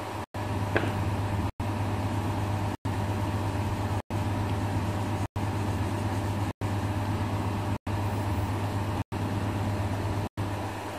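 Steady low hum with an even hiss behind it, cut by short silent gaps about every second and a quarter, and a single faint click about a second in.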